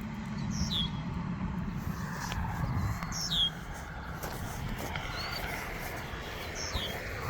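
A bird calling outdoors: a short, high, downward-sliding whistle repeated three times about three seconds apart, with one short rising note between the last two. A steady low rumble runs underneath.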